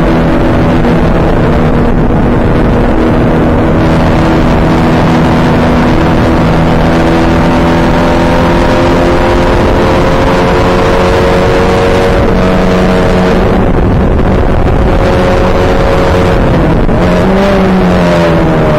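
Onboard sound of a small open-wheel race car at racing speed: the engine is held at high revs and climbs slowly in pitch along a straight under heavy wind rush. Near the end the pitch drops in steps as the car brakes and shifts down for a corner.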